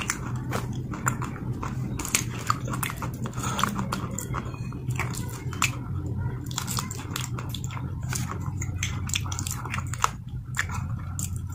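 A person chewing a mouthful of grey paste close to the microphone: irregular wet crunches and mouth clicks several times a second, over a low steady hum.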